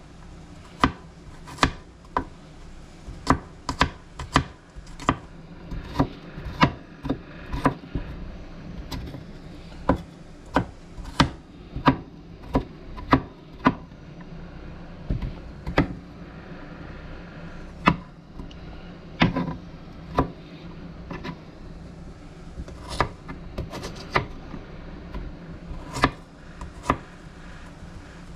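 Kitchen knife chopping peeled garlic cloves on a plastic cutting board: sharp knocks of the blade striking the board, irregularly spaced at about one to two a second, with a few short pauses.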